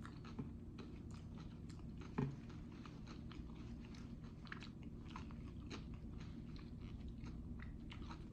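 Close-miked chewing of jalapeño poppers: faint, irregular wet clicks and smacks of the mouth, with a brief hum about two seconds in.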